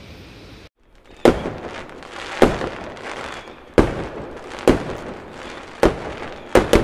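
Fireworks going off: seven sharp bangs, roughly one a second with two close together near the end, each trailing off in a rumbling echo.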